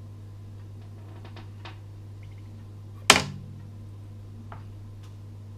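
A PVA bag rig dropped into a small glass tank of water, landing with one sharp impact about three seconds in, over a steady low hum and a few faint ticks.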